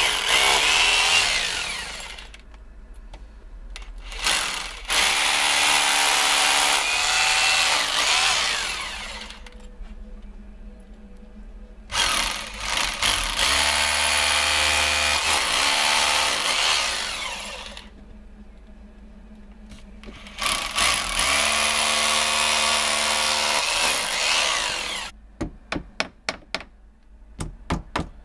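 Rotary hammer drill boring into brickwork in several runs of a few seconds each, with short pauses between them. Near the end a claw hammer taps about ten times in quick succession.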